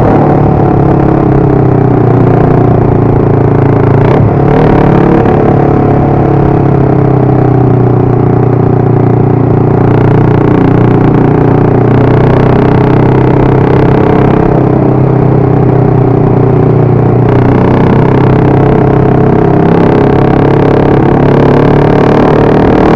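Motorcycle engine running steadily while riding, its pitch drifting slightly up and down with the throttle.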